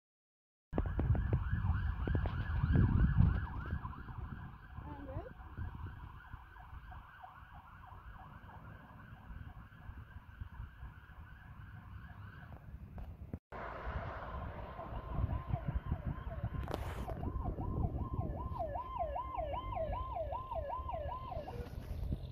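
Fire truck sirens yelping in fast rising-and-falling cycles, about three a second, over the low rumble of heavy fire trucks on the road, loudest about three seconds in. The first siren fades away, the sound breaks off briefly, and a second siren yelps again near the end.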